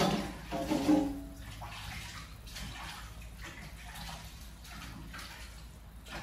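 Meat broth boiling hard in a stainless steel pot, the water bubbling and churning unevenly. A louder, briefly pitched bubbling sound comes near the start.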